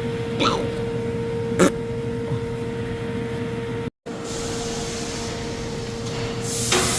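Car engine running steadily, with a constant hum and tone and a couple of light clicks. After a brief cut about halfway through, a hiss builds up near the end.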